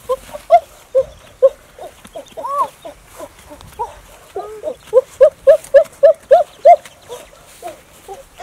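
Quail giving short repeated calls, with a quick run of about five calls a second from about five seconds in.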